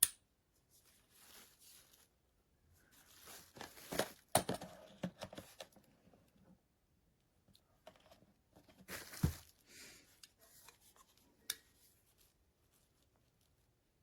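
Rustling, tearing and crinkling handling noise, broken by sharp clicks and knocks, in two busier spells about four and nine seconds in.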